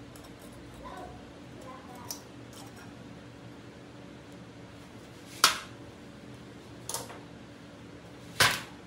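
Sharp metallic clicks as needle-nose pliers work against a rusty steel hydraulic jack cylinder on a steel plate: four separate clicks, the loudest about five and a half seconds in and another strong one near the end, over a low steady hum.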